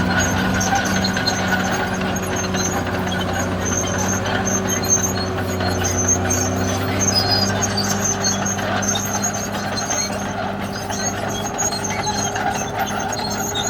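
Caterpillar D6R XL bulldozer's diesel engine running steadily at working speed, with a noisy mechanical clatter over the engine's drone.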